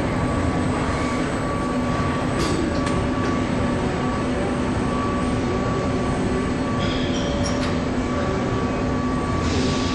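Steady hum of electric-motor stator assembly machinery, with a constant low tone and a thin whine over it. A few brief clicks and hisses come about two and a half seconds in, around seven seconds in, and near the end.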